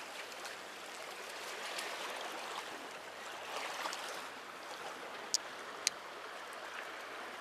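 Seawater sloshing and trickling among concrete breakwater tetrapods, a faint steady wash. Two sharp clicks come a little over half a second apart about two-thirds of the way through.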